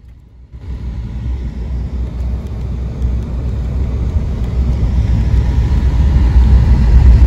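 Pickup truck driving along a dirt track, its rumbling road, tyre and wind noise coming in suddenly about half a second in and growing steadily louder.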